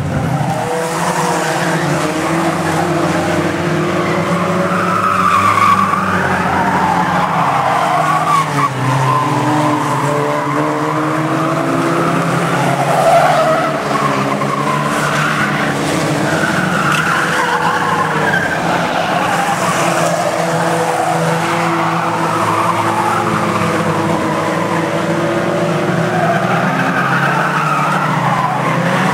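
A pack of bangerstox racing cars running hard around an oval, several engines revving over one another with tyres skidding through the bend.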